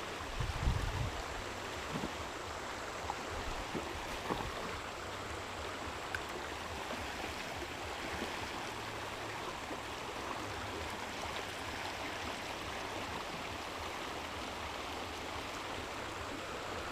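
Steady rush of water pouring from a dam. There is a brief low bump about a second in.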